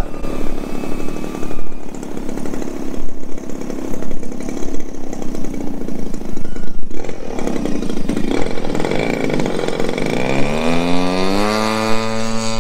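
Happymodel Mantis 85 FPV micro quadcopter's motors buzzing in flight, changing with the throttle. About ten seconds in, a pitched motor note rises over a couple of seconds and then holds steady.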